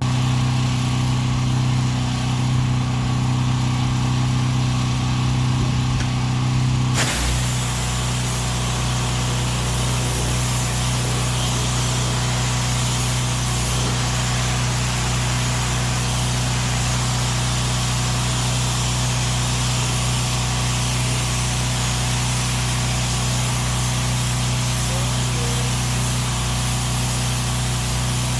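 An engine running steadily, its sound changing abruptly about seven seconds in to a noisier tone over the same hum.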